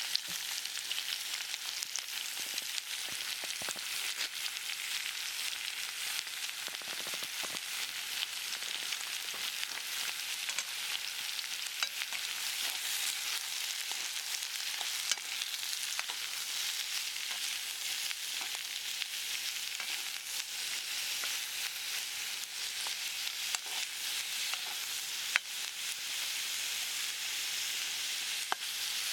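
Food frying in a pot, a steady sizzle with scattered sharp pops.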